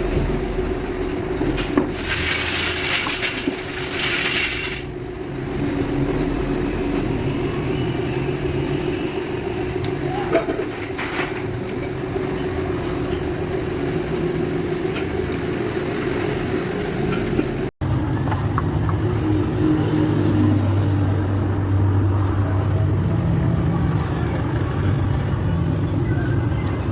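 Car engine running with a steady whine from the clutch release bearing, the noise of a worn clutch bearing. A few light clinks, and a sudden brief dropout about two-thirds through.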